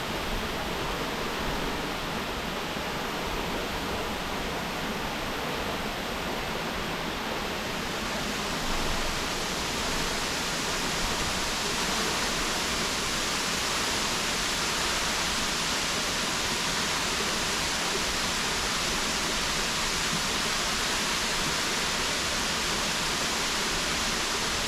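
Bambarakanda Falls, a high waterfall, making a steady rushing sound of falling water. About eight seconds in, the sound turns hissier and a little louder.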